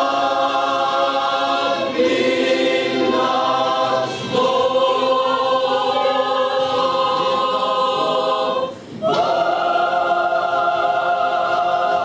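Mixed church choir of men's and women's voices singing a Ukrainian hymn in sustained chords, with short breaks between phrases about two, four and nine seconds in. From about nine seconds one long chord is held, then cut off near the end.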